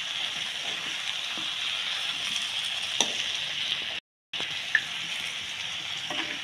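Chicken curry sizzling in a pan as it is stirred with a spatula: a steady sizzle with a couple of sharp clicks of the spatula on the pan. The sound drops out for a moment about four seconds in.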